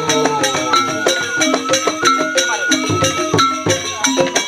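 Rindik ensemble playing a fast koplo-style piece: Balinese bamboo xylophones struck in quick, dense patterns, with a drum kit's cymbal and drums keeping the beat.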